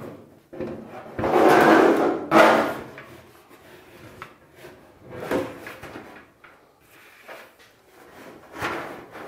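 Metal dryer drum scraping and bumping against the sides of the dryer cabinet as it is lowered into place. A long loud scrape comes about a second in, then a few lighter knocks and rubs.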